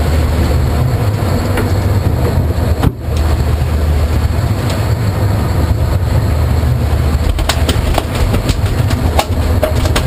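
Sportfishing yacht's engines running with a steady low rumble, under wind and water noise. There are a few sharp clicks and knocks in the last couple of seconds.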